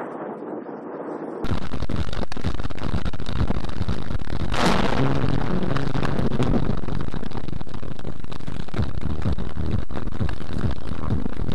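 Thunderstorm noise from a close lightning strike: a loud, steady rush of rain and wind on the microphone cuts in suddenly about a second and a half in, with a sharp thunder crack about four and a half seconds in.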